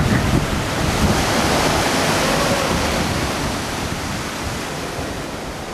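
Steady rushing noise of waves and wind at the shore, growing gradually quieter.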